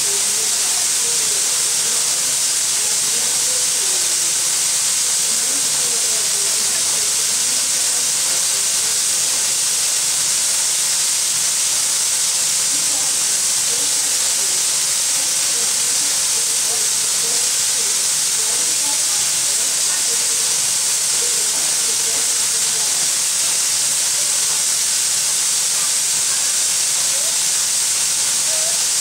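Steam locomotive L-4600 letting off steam: a steady, loud hiss that does not change in level, with no whistle sounding.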